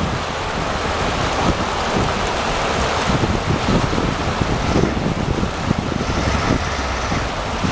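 Glacial river water rushing and wind buffeting the microphone, while a heavy MAN 8x8 truck wades slowly through the shallow river. Rushing noise with irregular low gusting throughout; no clear engine note stands out.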